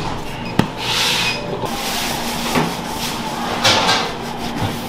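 Kitchen handling noises over a steady machine hum: a sharp click just after the start, then rustling and scraping noises, with a burst of scraping near the end as a knife works into a loaf's crust.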